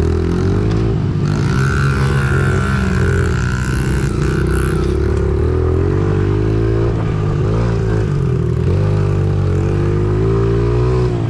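Small four-stroke single-cylinder engine of a Honda mini dirt bike being ridden hard, revving up and dropping back several times as the throttle is worked.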